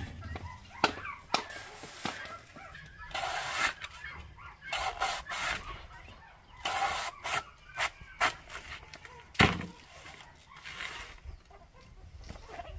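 Chickens clucking and squawking in short calls, with a few sharp knocks, the loudest about nine seconds in.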